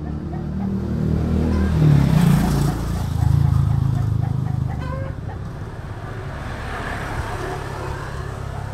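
Road traffic: motor vehicles rumbling past, with the nearest passing loudest about two seconds in and another swell shortly after.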